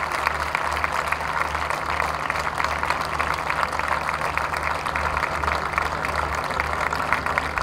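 Large audience applauding steadily after a dance performance, a dense patter of many hands clapping. A low hum runs underneath, breaking off and coming back every second or so.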